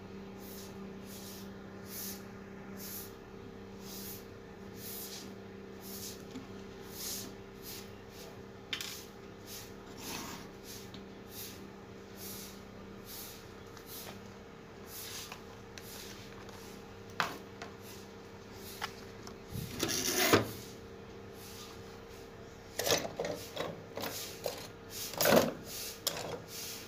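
Bench handling noise over a steady low hum: faint ticks and taps, a sharp knock about two-thirds of the way through, then a clatter of repeated strikes near the end as loose electrolytic capacitors rattle in a plastic parts box.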